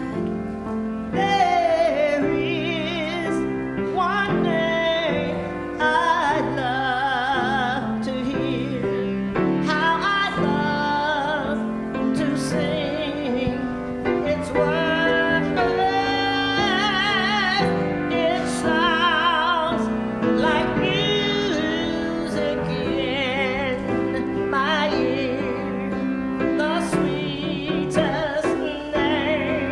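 Church music: a singer holding long notes with heavy vibrato over sustained keyboard accompaniment.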